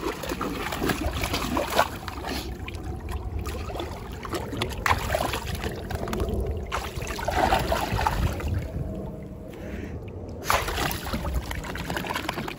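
A dog pawing and stepping about in a shallow plastic kiddie pool: water sloshing and splashing in irregular bursts.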